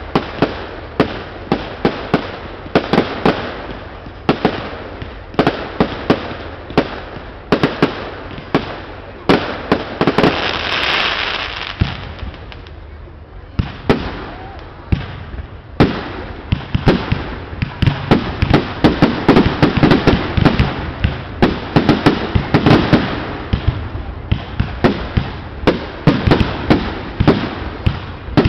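Fireworks display: aerial shells bursting one after another, sharp bangs several a second. About ten seconds in, a longer hissing crackle comes in, followed by a brief lull before the bangs pick up again.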